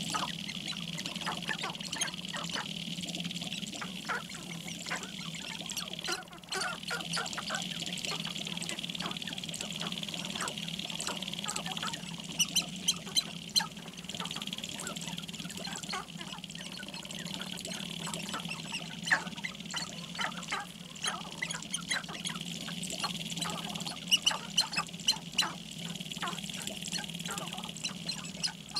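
Sharp-tailed grouse calling on their dancing ground: a continuous chatter of short clucks and cackles from many birds, with louder runs of sharp clucks about halfway through and again late on.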